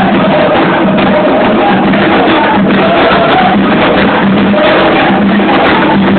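Candomblé ritual music: hand drums (atabaques) playing a dense, steady rhythm, with voices singing over them.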